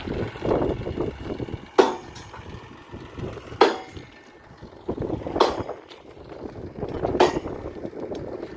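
Footsteps crunching on the crushed-stone ballast of a railway track, with a sharp crunch about every two seconds over a rough, scuffing rustle.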